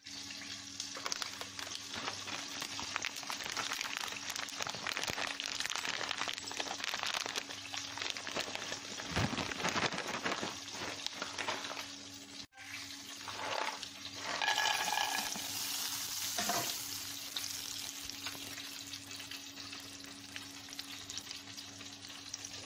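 Hot oil sizzling and crackling in a stainless steel frying pan as cashew nuts are fried in it, over a faint steady low hum. Partway through there is a brief louder stretch, around when the nuts go in.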